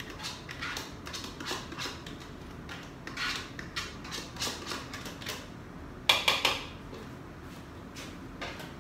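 A spoon scraping and clinking in a bowl as green masala paste is stirred into minced meat for kofta, in short irregular strokes. About six seconds in comes a louder clatter of several quick knocks.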